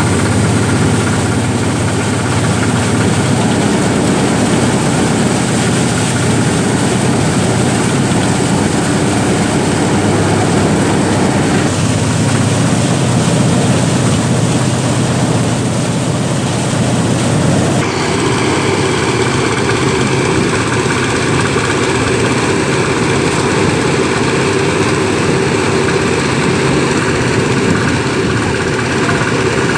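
Engine-driven rice thresher, powered by a small Loncin petrol engine, running steadily while rice sheaves are fed into its threshing drum. Its tone changes abruptly about twelve seconds in and again about eighteen seconds in.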